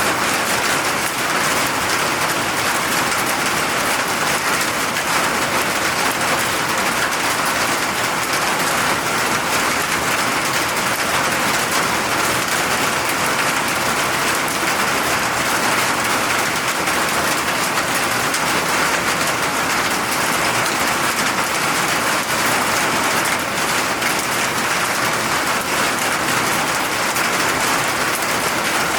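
Steady rainfall: a dense, even patter of rain on surfaces.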